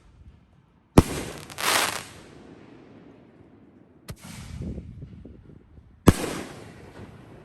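5-inch canister firework shells going off: two loud, sharp bangs about five seconds apart, each trailing off in a rumble, with a hissing burst just after the first and a smaller report in between.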